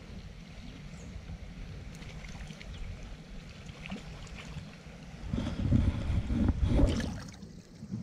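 Wind rumbling on a body-worn camera's microphone, swelling to a much louder gust about five seconds in and easing off near the end.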